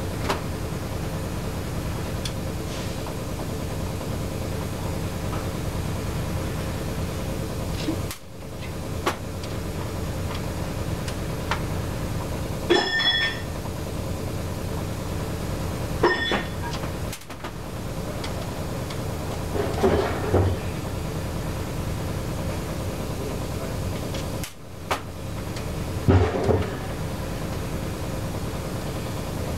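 Small metal carburetor parts and tools clinking and knocking on a metal workbench as the carburetor's float bowl is taken off, one clink about a third of the way in ringing briefly, over a steady background hiss that drops out briefly a few times.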